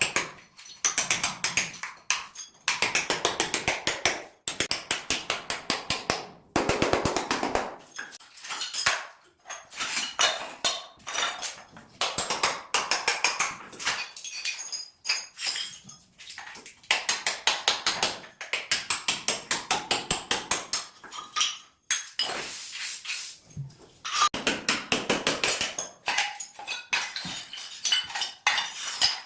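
Rapid hard tapping on tile, about six strikes a second, in runs of a second or two with short pauses between.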